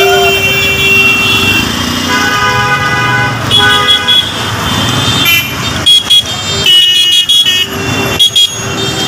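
Congested road traffic with several vehicle horns honking one after another over the running of engines. A long, low horn sounds at the start and again near the end, with higher-pitched horns in between.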